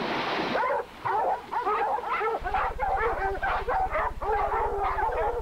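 Dogs barking and yelping in rapid, repeated bursts while baying a wild hog.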